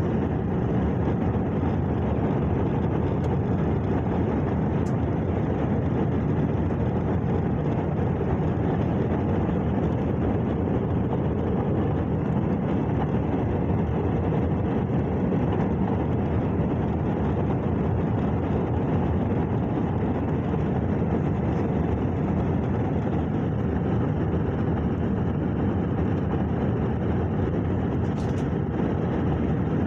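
Steady roar of engine and air noise inside an airliner's cabin, with no rise or change in level.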